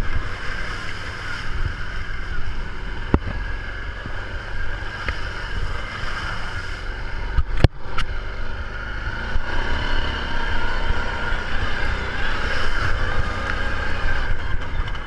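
ATV engine running steadily while riding, with wind rumbling on the microphone and sharp knocks about three seconds and seven and a half seconds in.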